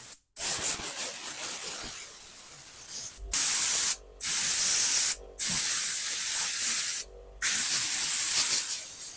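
Compressed air blowing debris out of a chainsaw in a series of about five hissing blasts with short breaks between them, the first tapering off before the next ones start about three seconds in.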